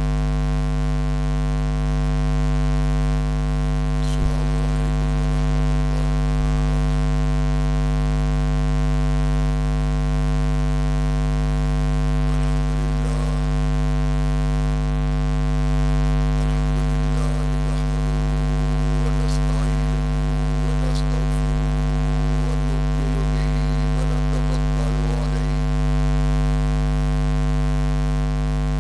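Loud, steady electrical mains hum on the microphone and sound system: an unchanging low buzz with a ladder of overtones. Faint voices murmur underneath.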